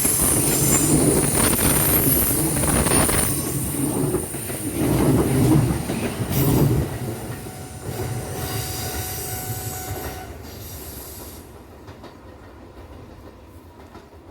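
Kyoto Municipal Subway 20 series electric train running past: rumble and clatter of its wheels over the rails. It fades away from about seven seconds in as the train moves off.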